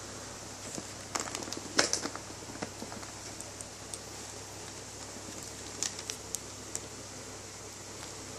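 Hand handling of packaging: a burst of crinkling and crackling from a clear plastic sleeve, then a few sharp light clicks, over a steady background hiss.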